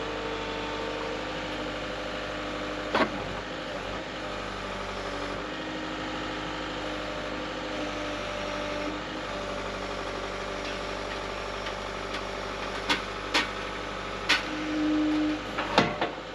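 A vehicle engine running steadily, with a sharp knock about three seconds in and a cluster of knocks near the end.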